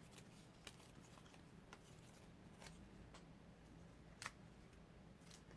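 Near silence with a few faint clicks and taps of small paper card pieces being handled, the clearest about four seconds in.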